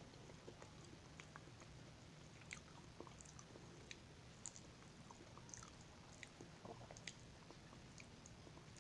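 Faint close-up chewing and biting of fried banana: soft, wet mouth clicks scattered a few per second, with a bite into the slice partway through.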